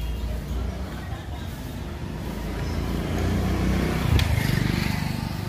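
A motor vehicle passing close by: a low engine rumble with tyre noise that builds to its loudest about four seconds in and then eases, with a sharp click near the peak.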